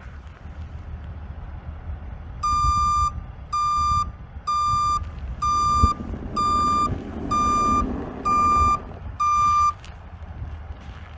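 Truck reversing alarm beeping eight times, about once a second at one steady pitch, as the 2005 Hino 268 truck backs up, over the low running of its diesel engine.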